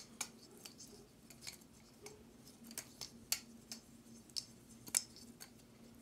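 Balisong trainer being flipped: light metallic clicks and clacks of its handles and latch, irregular, about a dozen in a few seconds, over a faint steady hum.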